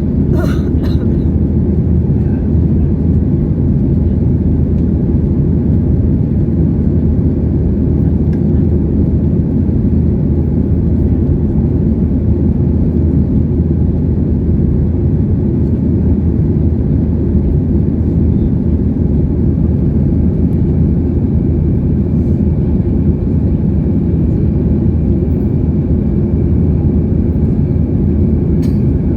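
Steady cabin noise of a Boeing 737-800 with its CFM56-7B jet engines running at power, a constant low rumble of engines and airflow, with a faint high whine joining in near the end.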